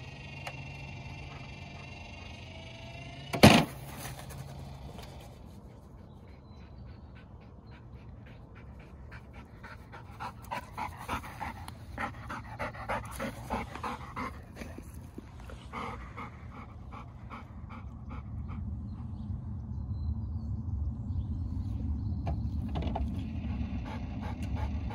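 A golden retriever panting in quick, rhythmic breaths, clearest in the middle. A steady whine in the first three seconds ends in a single loud, sharp thump, the loudest sound here.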